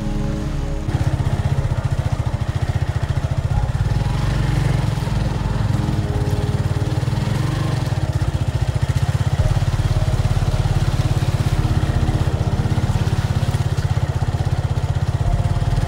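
Motorcycle engine running steadily under load on a rough off-road track, with rapid firing pulses. It gets louder about a second in.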